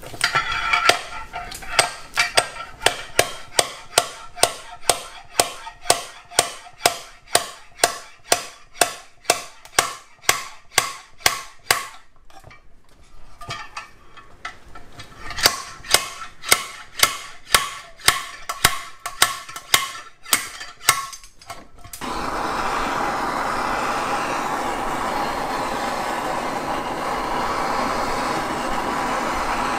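Slide hammer puller yanking at a blind-hole bearing in a transfer case housing: the weight slams against its stop in a steady run of sharp metal clanks, about two a second, pauses briefly, then runs again. About two-thirds of the way in, a propane torch takes over with a steady loud hiss as it heats the housing around the stuck bearing.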